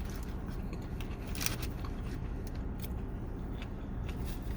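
Eating noises inside a car: a few faint crunches and crinkles, the sharpest about a second and a half in, over a steady low hum.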